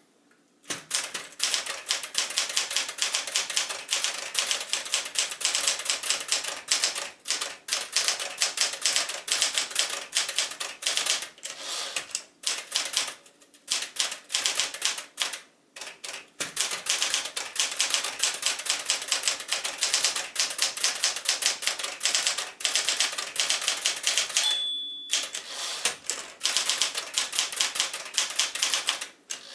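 Deville Deluxe manual portable typewriter (a rebadged Smith-Corona Galaxie Deluxe) being typed on: rapid runs of keystrikes with a few short pauses. About three-quarters of the way through, the bell rings once briefly, followed by a short pause before typing resumes.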